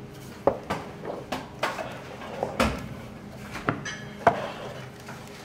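Wooden rolling pin knocking against the rim of a metal baking tray as it presses a sheet of dough over the tray. About nine sharp knocks come at irregular intervals.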